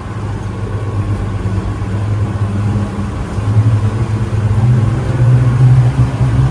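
An engine running with a steady low rumble that grows somewhat louder.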